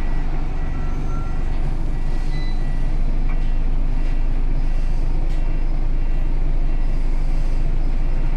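Scania L94UB city bus's engine running at a steady low drone, heard from inside the passenger saloon, with a few faint clicks and rattles from the interior.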